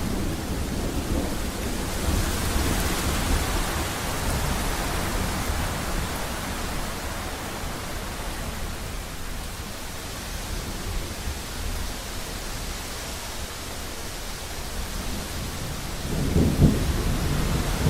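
Thunderstorm: steady rain with low rolling thunder, and a louder rumble of thunder near the end.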